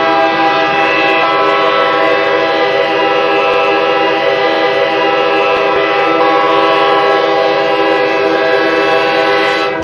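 Hockey arena goal horn recording sounding one long steady blast of about ten seconds, several tones at once like a chord. It dies away near the end as drum music comes in.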